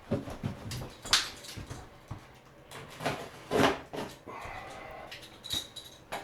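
Wall demolition: irregular scraping and crunching strokes as old drywall and insulation are pried and torn off, with brief high squeaks between them.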